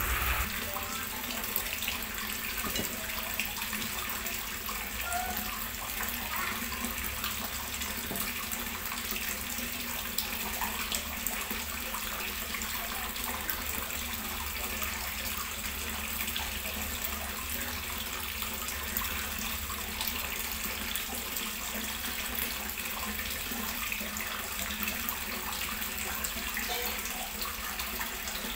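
A steady, even rushing noise, like running water or hiss, with faint scattered clicks and scrapes of a spatula on a nonstick wok as the food is slid out onto a plate.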